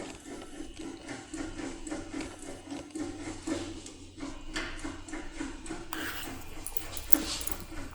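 Force key being rocked back and forth in a lock cylinder held in a vise: repeated metal-on-metal scraping and creaking, sharper and brighter in the second half.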